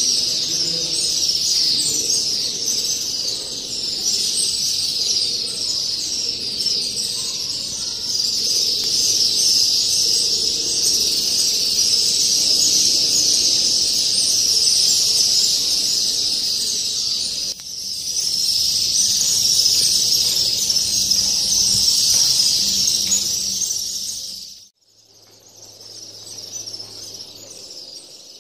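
A large colony of mud swallows twittering and chirping all at once at their nests, a dense, high, unbroken chatter. Near the end it drops suddenly to fainter chirping with a brief low hum.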